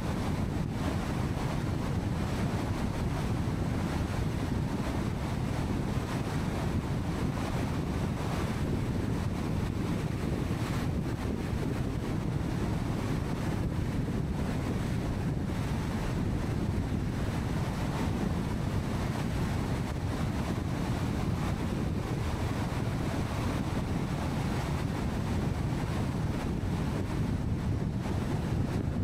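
Steady road and wind noise from a car driving at highway speed: an even, low rushing sound.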